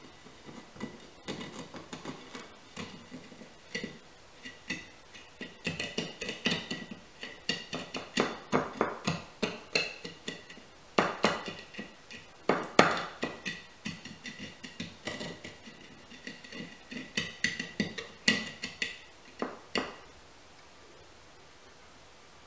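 Martini glass clinking against a ceramic plate as its rim is worked for a chocolate rim: a long run of light, quick clinks and taps with a faint glassy ring, stopping about two and a half seconds before the end.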